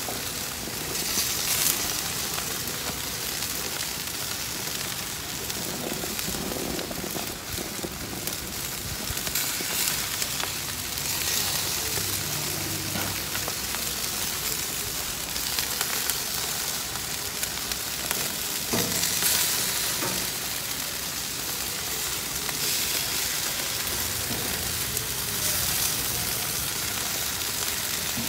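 Chicken pieces and hot dogs sizzling steadily on a hot barbecue grill, fat spitting on the grates with swells in the hiss.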